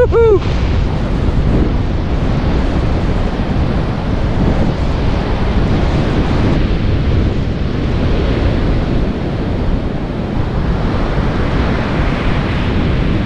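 Breaking surf with strong wind buffeting the microphone: a steady low rumble under a hiss that swells as waves break, about eight seconds in and again near the end.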